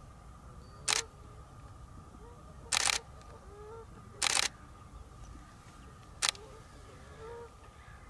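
Camera shutter firing four times: a single click about a second in, two short bursts of shots around three and four seconds in, and one more click near six seconds. Faint bird calls sound in the background.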